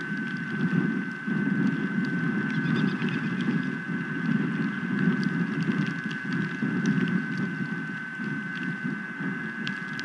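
Storm wind buffeting an outdoor nest-cam microphone in gusts, under a steady high tone. Scattered light ticks run through it, the sound of hail or sleet striking.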